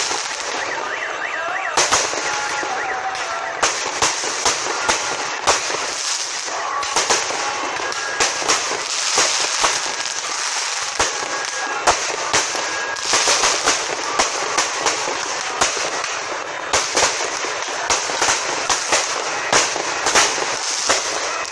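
Fireworks display: a constant run of sharp bangs at irregular intervals, often several a second, over a continuous crackling hiss.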